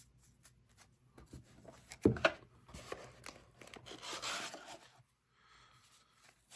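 Trading cards and their packaging being handled and put away: light rustling with scattered small clicks, and one sharp knock about two seconds in.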